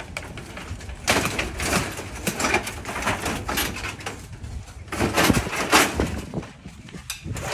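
Rusty corrugated metal roofing sheets and wooden poles scraping and clattering as they are shifted in a pile, in uneven spells of rattling that are loudest about five to six seconds in.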